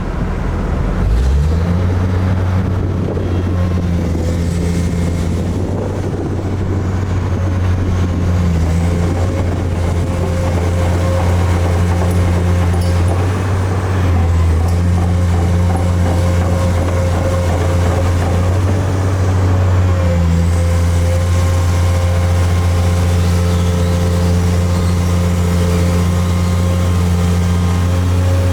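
Large diesel engine of a Kobelco SK850LC crawler excavator running with a steady low hum. It comes up over about the first second, then holds an even level with small shifts in pitch.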